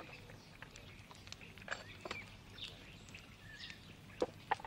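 Faint outdoor woodland ambience with scattered bird chirps, and two short sharp knocks near the end.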